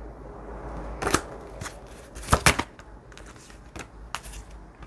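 A deck of divination cards being shuffled and handled on a table. There is a soft rustle for the first two seconds, then a series of sharp card snaps and taps, the loudest about halfway through.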